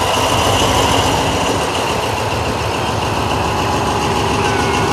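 Diesel-electric locomotive engine running as it hauls a passenger train slowly into the station, with a steady whine over the engine's rumble.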